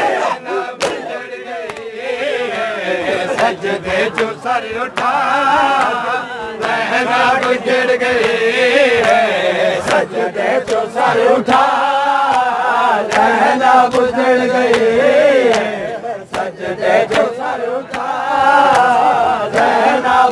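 Men's voices chanting a Punjabi noha in unison, with sharp, irregular strikes of matam cutting through it.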